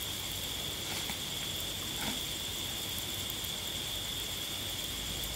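Insects chirring steadily at one high pitch, with a few faint soft knocks about one and two seconds in as lumps of cup rubber are shifted.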